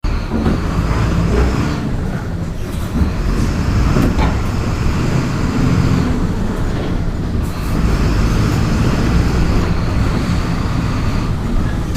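Diesel engine of a Marcopolo Torino city bus on a VW 17.230 EOD chassis with a ZF manual gearbox, pulling in first gear. The engine revs up and eases off several times under load, with a couple of brief knocks along the way.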